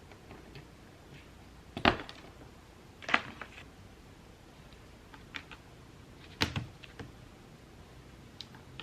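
A few separate sharp plastic clicks and knocks from mechanical keyboard parts being handled during assembly, the loudest about two seconds in.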